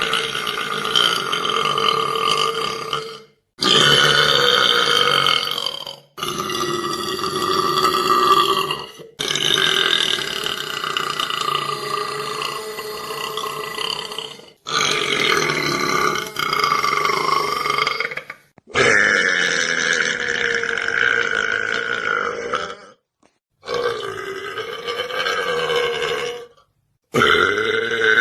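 A man's long, drawn-out belches, about eight in a row, each lasting several seconds and cut off abruptly before the next.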